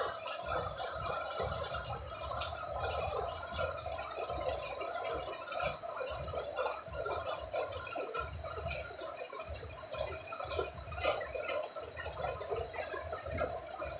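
Steady rain falling, with many small drips and splashes close by.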